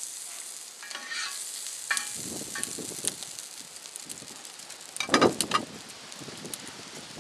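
Butter sizzling in a hot cast-iron skillet, with a plastic slotted spatula scraping and pushing the melting pat across the pan. There is a short, louder clatter about five seconds in.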